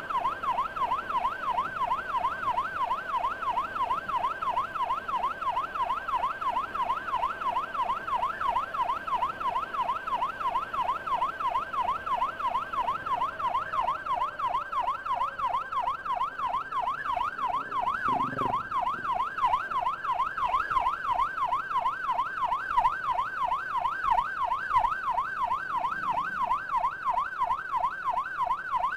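Electronic emergency siren in a fast, steady yelp, its pitch sweeping up and down about three times a second, heard while escorting an ambulance through traffic.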